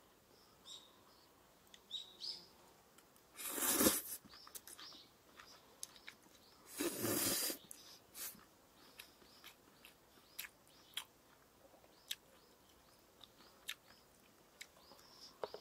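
Two short slurps of noodles, a few seconds apart, with scattered small clicks and faint bird chirps.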